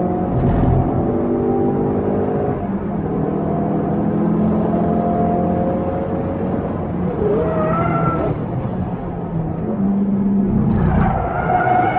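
Ford Focus RS's turbocharged four-cylinder engine heard from inside the cabin under hard track driving, its revs rising and falling through gear changes. The tyres squeal briefly in a corner about eight seconds in and again near the end.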